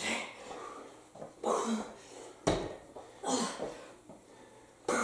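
A woman's heavy, forceful exhalations from exertion, about four of them, roughly one with each incline narrow push-up on a bar. There is a single sharp knock about halfway through.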